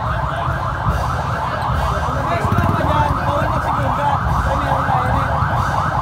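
An electronic siren on its rapid yelp setting, about five rising sweeps a second, over a loud low rumble.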